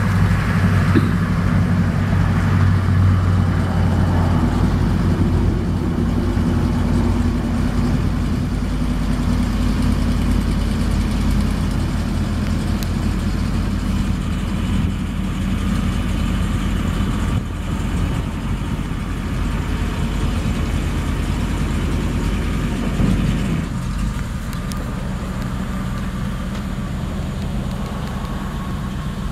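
A 1991 GMC TopKick's 6.0L V8 gas engine runs steadily while the dump flatbed's hydraulic hoist lowers the bed. Near the end the engine note drops and quietens slightly.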